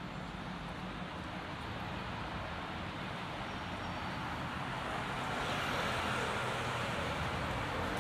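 Street traffic: a low engine hum with tyre hiss that swells as a car draws near and passes, loudest from about five seconds in.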